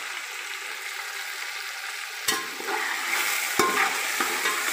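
Chicken pieces and spices frying in hot oil in a metal pot, a steady sizzle. About halfway through a metal skimmer spoon starts stirring them, knocking and scraping against the pot.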